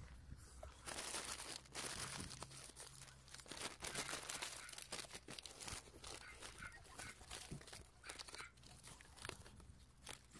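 White paper bag rustling and crinkling in the hands in a steady run of irregular crackles, as it is pulled over a branch and gathered at the neck to be tied.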